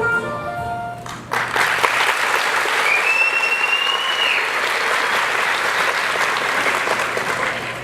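Music ends about a second in and audience applause breaks out and carries on, with one long whistle from the crowd partway through.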